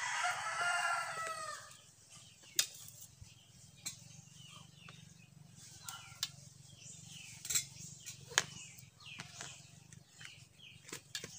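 A rooster crows once, a call of about two seconds. Then scattered sharp clinks of spoons against metal plates and a metal serving pot.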